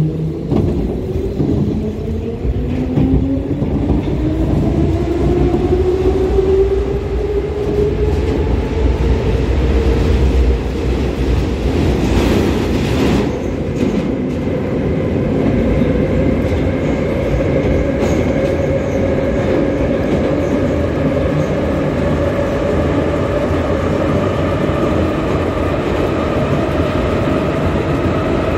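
Inside a St Petersburg metro car of type 81-540.2 accelerating away from the station into the tunnel. A motor whine climbs in pitch over the first several seconds, then levels into a steady high tone as the train runs at speed, over a steady rumble of wheels on rail. There is a short burst of hiss about twelve seconds in.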